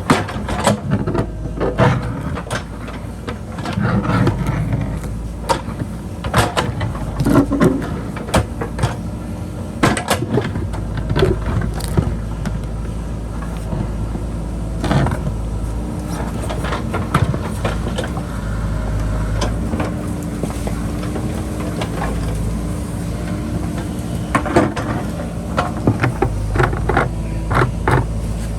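JCB backhoe loader's diesel engine running steadily under load, with repeated clanks, knocks and scrapes from the bucket working through earth and rock.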